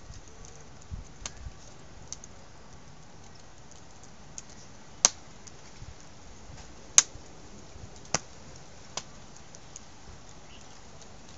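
Wood fire crackling in a steel fire ring, with scattered sharp pops as the burning wood splits. The two loudest pops come about five and seven seconds in.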